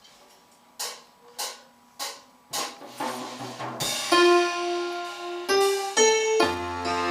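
Four sharp clicks about half a second apart, then a worship band's keyboard begins playing sustained piano chords, with a low bass note joining near the end: the start of a worship song.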